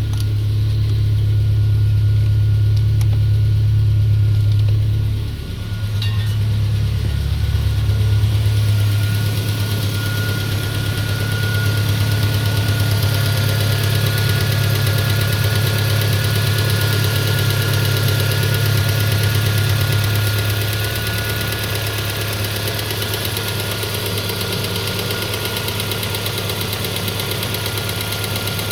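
Peugeot 407 2.2 petrol engine idling cold with a knock, which appeared after new piston rings, lapped valves and a new valve stem seal job; the owner suspects the cam phaser (variable valve timing actuator).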